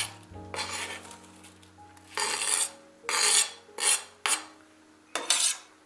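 Knife blade scraping diced onion off a plastic cutting board into a frying pan, in a series of short scrapes with pauses between them.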